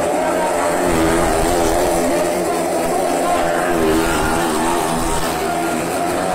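Motorcycle engine running hard as it rides round the vertical wooden wall of a well-of-death drum, its pitch rising and falling in a steady wave as it circles.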